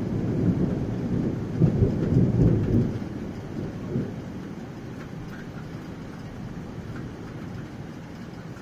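Rolling thunder that swells twice and then fades over the first three seconds or so. A steady hiss of rain is left behind it.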